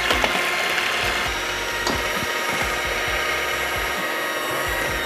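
Electric hand mixer running steadily, its beaters whirring through cake batter in a stainless steel bowl, with a few light knocks.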